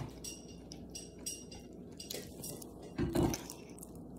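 A child chewing and biting into a maple-glazed pastry: faint mouth and handling clicks, with a brief vocal sound at the start and another about three seconds in.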